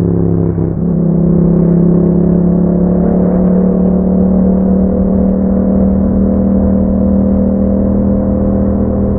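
Yamaha MT-07's 689 cc parallel-twin engine running at a steady speed through an Akrapovic exhaust, with a brief dip in the note about half a second in before it settles back to a steady drone.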